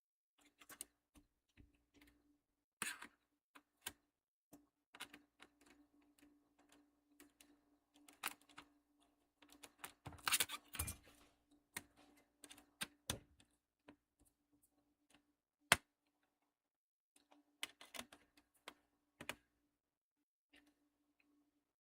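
Small plastic and metal clicks and taps as screws and a screwdriver are handled against a laptop's plastic bottom case, with a busier clatter about ten seconds in.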